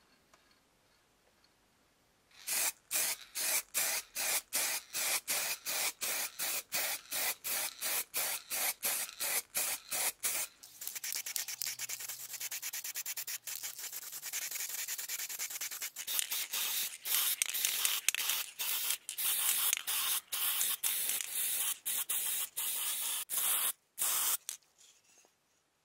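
Aerosol can of matt black spray paint rattling as it is shaken hard, about four strokes a second, then spraying in a long hiss broken by short pauses, which stops abruptly near the end.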